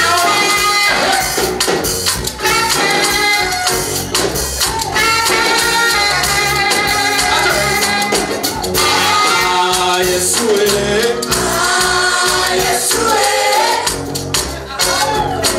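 Swahili gospel song: a choir and voices singing over a steady beat with tambourine.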